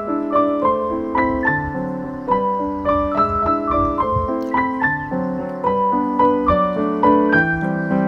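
Background piano music: a steady run of single notes over chords.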